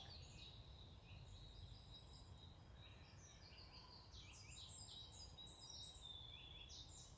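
Faint woodland birdsong: small birds chirping and calling in short repeated phrases, busiest in the middle and again near the end, over a low, steady background rumble.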